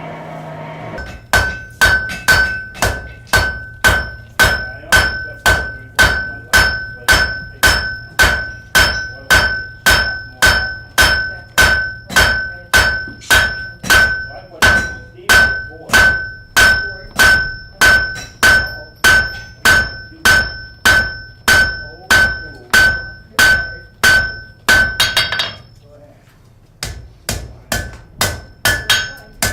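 Blacksmith's hammer striking metal on an anvil in a steady rhythm, about two blows a second, each with a bright metallic ring. The blows stop for a couple of seconds near the end, then start again.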